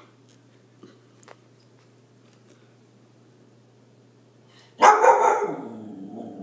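A Siberian husky puppy gives one sudden loud bark about five seconds in that slides down into a lower, drawn-out grumble. She is frightened of a balloon.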